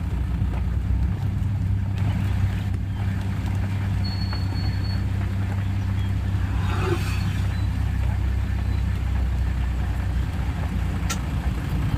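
Safari vehicle's engine idling steadily, a low even hum, with a short, fainter sound about seven seconds in.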